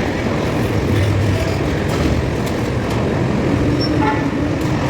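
Electric arc furnace running during a melt: a loud, steady industrial roar with a deep hum underneath.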